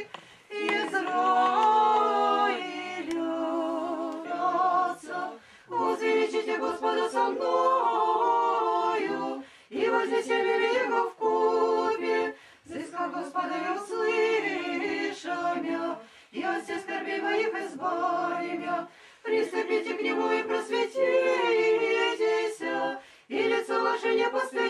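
Church choir singing Orthodox liturgical chant unaccompanied, in phrases broken by brief pauses every few seconds.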